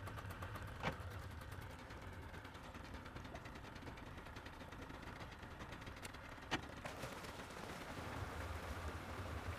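Low steady hum of a bass boat's electric trolling motor as the boat creeps along the shore, with two sharp knocks, one about a second in and one a little past halfway.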